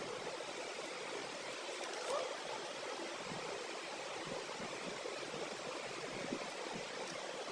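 Steady background hiss, with one faint short rising sound about two seconds in.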